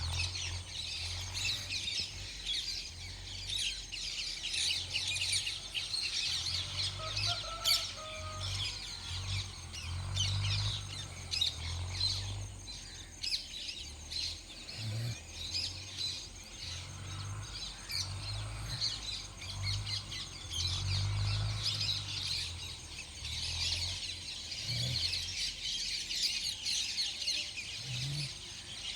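Outdoor bird chorus: many birds chirping densely and without a break, with a low rumble that swells and fades underneath.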